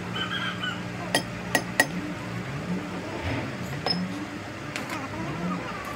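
Three sharp clinks about a second in, over a steady machine hum that starts to waver in pitch after about two seconds.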